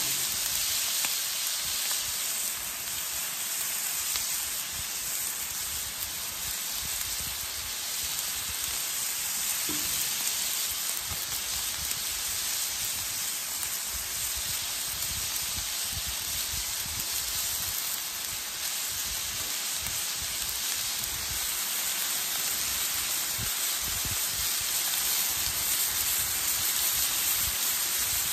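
Ground breakfast sausage and sausage links sizzling on a Blackstone flat-top griddle, a steady hiss that grows slightly louder near the end as strips of bacon go down on the hot steel.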